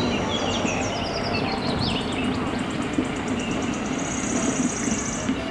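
Mercedes-Benz concrete mixer truck's diesel engine running steadily with a low hum and rumble. High chirps and a fast ticking trill sit above it, the trill strongest toward the end.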